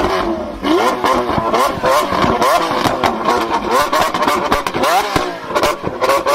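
Lamborghini Aventador LP700-4's naturally aspirated V12 revved hard while standing still, in a quick series of short throttle blips that rise and drop back. Sharp pops and crackles from the exhaust come between the blips.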